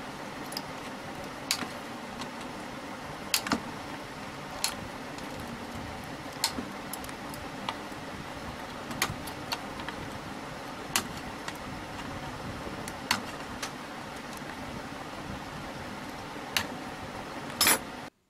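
Side cutters snipping the excess leads of newly soldered rectifier diodes on a CRT television's power-supply board: sharp clicks every second or two, the loudest near the end, over a steady background hiss.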